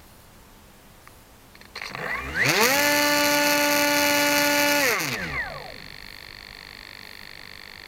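Electric RC airplane motor spooling up: its whine rises in pitch over about a second, holds steady at full throttle for about two seconds, then winds down. A quieter steady high whine is left afterwards.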